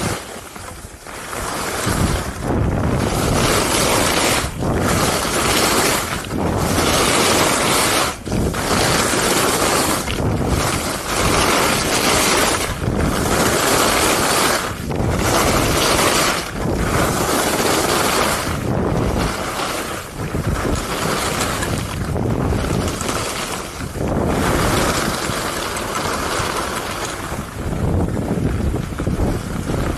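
Skis hissing and scraping over groomed snow in a steady run of turns, the noise swelling and dipping about every two seconds with each turn, mixed with wind rushing over the camera's microphone.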